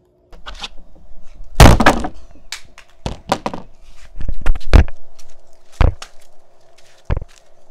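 A series of hard knocks and thunks from a claw hammer striking an AirPods charging case and the tabletop beneath it. The heaviest blow comes about two seconds in, and a quick cluster of knocks follows around the middle, with lighter single knocks between them.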